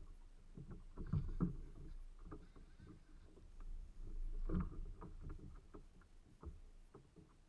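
Low rumble of wind and water around a fishing kayak, with scattered knocks and clicks as the rod and reel are handled. The loudest knocks come about a second in and again about halfway through.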